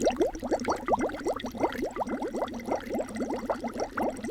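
Water bubbling as air is blown through a drinking straw into a small glass of water, a dense run of quick rising bloops. It is a foley stand-in for a pot of soup boiling.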